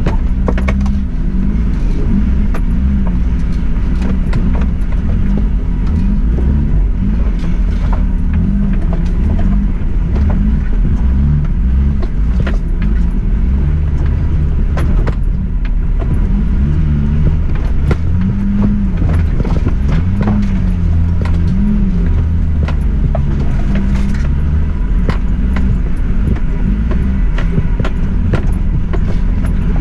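Suzuki Jimny's engine pulling at low revs up a steep, rough lane, its pitch rising and falling as the throttle is worked. Frequent small knocks and rattles run through it.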